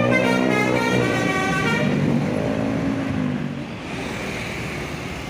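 Bus 'telolet' musical horn sounding several tones at once that step in pitch, stopping about a second in. A softer, lower horn note follows briefly, then steady traffic noise from passing vehicles.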